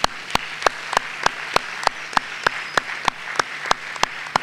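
Audience applauding, with one person's loud, close claps at a steady beat of about three a second over the crowd's clapping.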